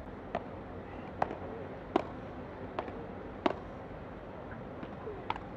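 Padel rally: the ball is struck back and forth with solid padel rackets and bounces on the court and walls, giving six sharp pocks at uneven gaps of about a second.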